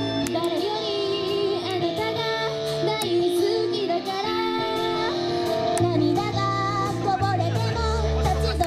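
Japanese idol pop song: young female voices sing the melody over an upbeat backing track with drums, and a heavy bass note comes in near the end.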